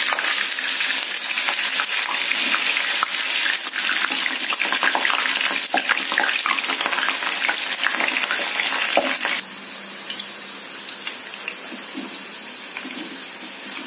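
Potato slices, wet from soaking in water, deep-frying in hot oil in a kadai: a dense crackling sizzle, with the wet slices making the oil spit. About nine seconds in it drops to a quieter, steadier sizzle.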